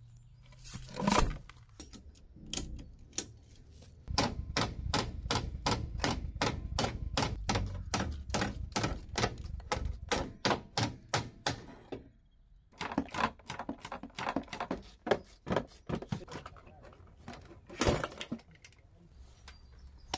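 Hand-tool work on the bare steel front frame of a crashed car: a fast, even run of clicks, about four a second, for several seconds, then a short pause and a looser run of clicks and knocks, with one louder knock near the end.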